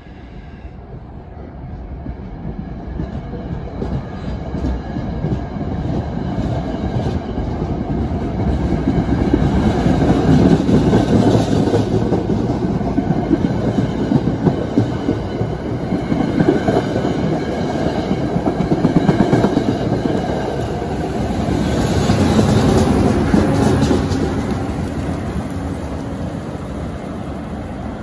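NJ Transit commuter train, a Comet coach set with an ALP-45DP dual-mode locomotive working on diesel, accelerating out of the station past the listener. Wheels clack over the rail joints and the locomotive's engine runs. The sound builds for the first several seconds, stays loud as the cars go by, and fades as the train pulls away near the end.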